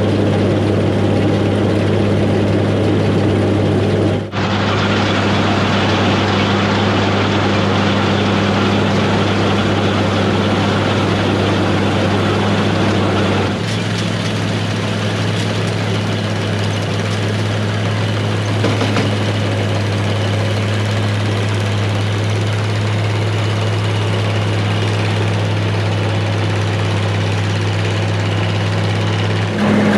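Gleaner A2 combine running steadily with a loud, even engine drone. The drone dips briefly about four seconds in and changes slightly in pitch about thirteen seconds in.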